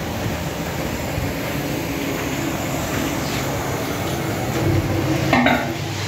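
Steady low machine hum, with a short metallic clatter about five seconds in as a perforated steel basket knocks against the steel drum of a hydro extractor (spin dryer).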